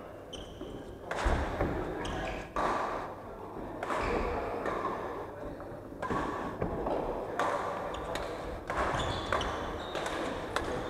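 Badminton rally: rackets striking the shuttlecock about every second and a half, with footfalls thudding on the wooden court floor, ringing in a large hall.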